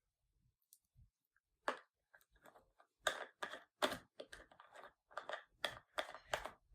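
A string of short, sharp clicks and taps from hands working slime and putting its pieces back into a small plastic tub, sparse at first and then coming two or three a second.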